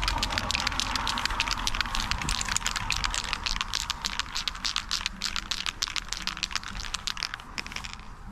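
Aerosol spray-paint can being shaken, its mixing ball rattling in rapid, uneven clicks for most of the stretch before stopping near the end.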